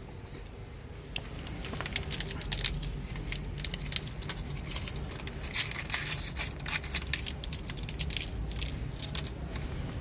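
Crinkling and rustling handling noise with many scattered clicks, densest about halfway through, as cat food is set out on the ground, over a steady low rumble.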